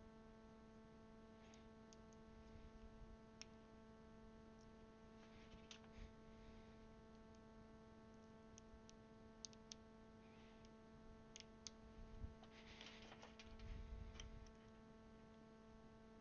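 Faint, scattered small plastic clicks and short rustles from handling mechanical keyboard switch parts, over a low steady electrical hum.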